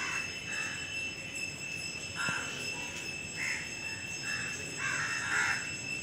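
Crows cawing outdoors, a string of short calls coming every half second to a second, over a faint steady high-pitched whine.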